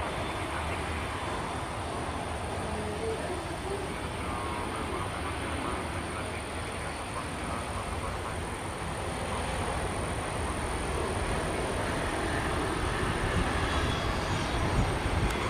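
Jet engines of a Boeing 737-800 airliner on final approach to land: a steady rushing jet noise that grows slowly louder over the last few seconds as the plane nears the runway.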